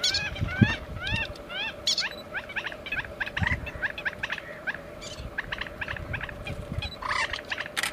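A flock of birds calling: many short, arched, honking calls in quick overlapping succession, several a second, over a faint steady hum.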